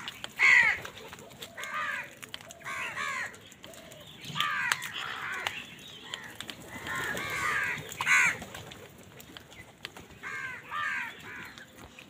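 A flock of house crows cawing, with harsh calls coming in short overlapping bursts from several birds. The loudest calls come about half a second in and again around eight seconds.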